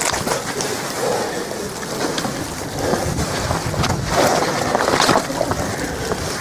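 Wind rushing over the microphone in heavy wet snowfall, with scattered ticks of wet snow striking an umbrella held over the camera. The noise swells louder about four seconds in.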